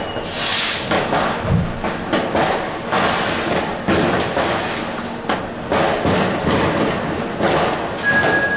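New Year's Eve firecrackers and fireworks going off all around, a rapid, irregular string of sharp bangs and cracks with a deeper boom about a second and a half in, heard through the tram's driver's cab. A steady high beep starts near the end.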